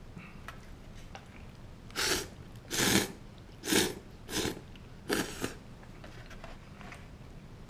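A man slurping ramen noodles: about five loud, short slurps in quick succession, starting about two seconds in, then quieter chewing.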